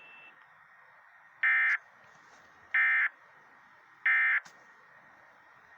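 Emergency Alert System end-of-message code over a weather radio broadcast: three short, identical bursts of buzzy digital data tones, about a second and a third apart. They mark the end of the alert.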